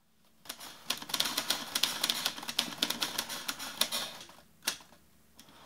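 Typewriter keys clacking in a rapid, uneven run for about three and a half seconds, then one last single key strike after a short pause.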